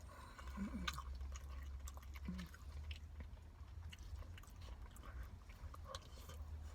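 A person chewing a mouthful of chicken biryani rice, with soft wet mouth clicks scattered through, over a steady low hum.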